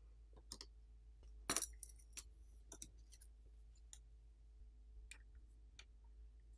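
Faint, scattered clicks and light clinks as a rugged phone's back plate is pried and lifted off its frame with a thin metal pry tool, the loudest few clicks coming together about a second and a half in.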